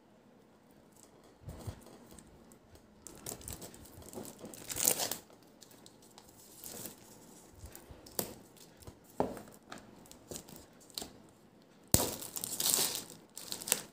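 Clear plastic shrink-wrap being peeled and torn off a phone box, crinkling in scattered bursts, with a loud cluster about five seconds in and denser, louder crinkling near the end.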